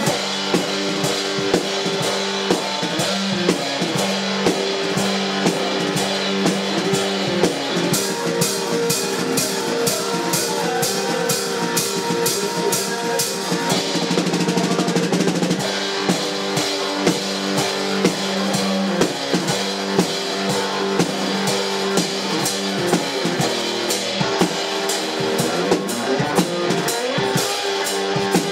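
Live garage blues-rock played on an electric guitar and a drum kit: an instrumental passage of guitar riffing over a steady drum beat, with one guitar chord held for a second or two about halfway through.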